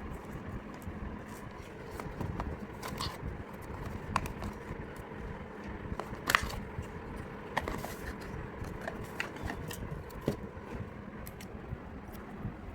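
Cardboard and plastic packaging being handled during an unboxing: scattered clicks, taps and light scrapes over a steady background hum. The sharpest click comes about six seconds in.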